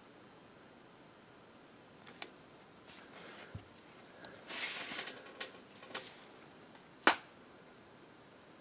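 Close handling noises: a few sharp clicks, the loudest about two seconds in and another near seven seconds, with rustling and lighter taps in between, as a miniature's painting grip is turned and shifted in the fingers.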